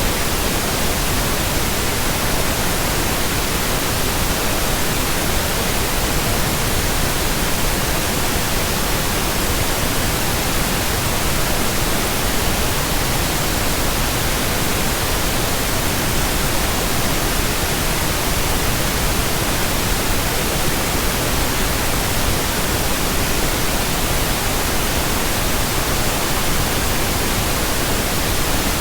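Steady pink noise: an even, unbroken hiss at a constant loud level.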